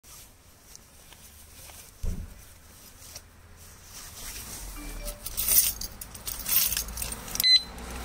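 Gloved hands handling a plastic alarm disc lock, with rustling and clinking rattles of the lock and its key. There is a thump about two seconds in, and louder bursts of rattling come several times from about five seconds on.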